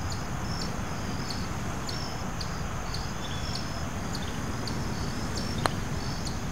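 Crickets chirping, short high chirps repeating irregularly over a steady low background rumble. About five and a half seconds in comes a single light click: a putter striking the golf ball.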